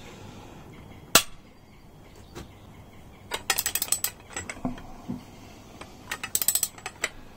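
Hand ratchet wrench clicking in short quick runs as it loosens the crankcase bolts on a Yamaha XJ650 engine, with one sharp metallic click about a second in that is the loudest sound.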